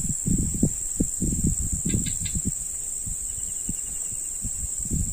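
Insects droning steadily at a high pitch, over irregular low buffeting on the microphone that is heaviest in the first second and a half and again near the end. A quick run of three clicks about two seconds in.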